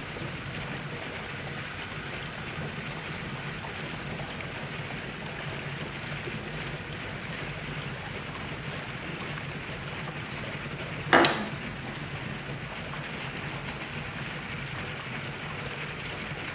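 HHO electrolysis generator running at full output, about 57 amps, with a steady fizzing of gas bubbling through water over a low hum. A single sharp knock comes a little past the middle.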